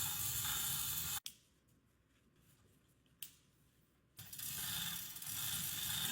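Machinery running with a steady, even noise that cuts off abruptly about a second in. About three seconds of near silence follow, with a single click in the middle, before the machine noise comes back.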